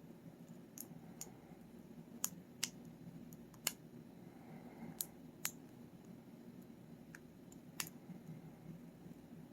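Sharp metallic clicks at irregular intervals, about ten in all, from a lock pick working the pins of a Paclock 90A-Pro 7-pin padlock under tension.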